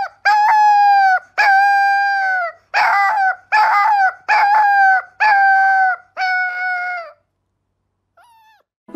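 An animal giving a run of about eight long, high, pitched cries in quick succession, each lasting from half a second to over a second and falling off slightly at the end. The cries stop about seven seconds in, and one faint short call follows near the end.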